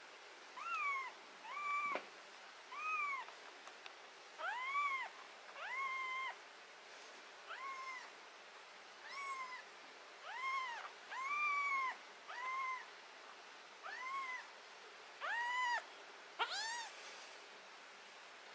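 A kitten meowing over and over, about once a second, each high meow rising and falling in pitch.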